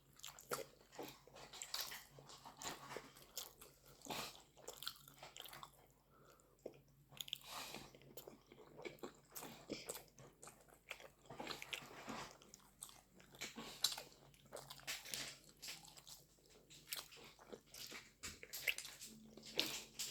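A person eating close to the microphone: irregular bites and crunches with chewing and mouth clicks.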